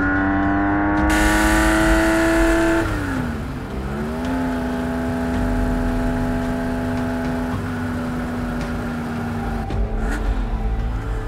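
1970 Porsche 911T's 2.2-litre air-cooled flat-six accelerating, its pitch climbing steadily, then dropping sharply at a gear change about three seconds in. It picks up again and runs at a near-steady pitch, with another brief dip and recovery near the end.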